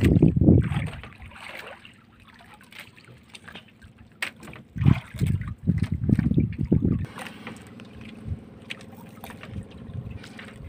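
Wet fishing net being hauled in by hand over a boat's side: water sloshing and dripping off the mesh in bursts near the start and again about halfway through, with small knocks of handling. A faint steady low hum runs underneath.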